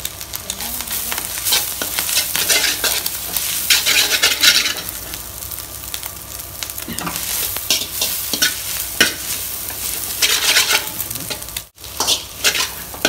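Shredded cabbage and scrambled egg sizzling in a hot oiled wok while a metal perforated ladle scrapes and stirs them in repeated strokes against the pan. The sound drops out for an instant near the end.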